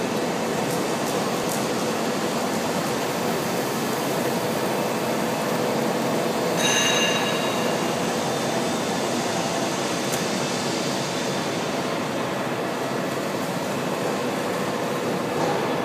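Small copper wire granulator running empty just after being switched on: a steady mechanical running noise from its motor and cutting rotor. A brief high-pitched squeal cuts through about seven seconds in.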